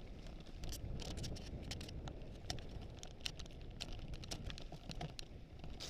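Low rumble with irregular clicks and rattles, the sound of a mountain bike and its handlebar-mounted camera being jolted over the trail.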